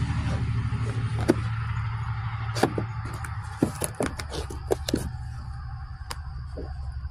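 Cardboard shipping box being handled and opened: a run of sharp clicks and crackles in the middle, over a steady low hum.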